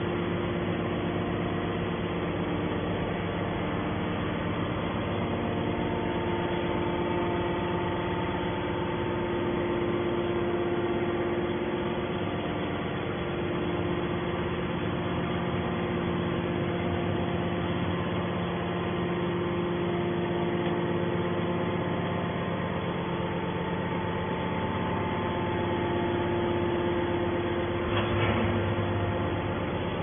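Hydraulic power unit of a scrap-metal baler running steadily, its electric motor and pump making an even hum with several constant tones. There is a short knock near the end.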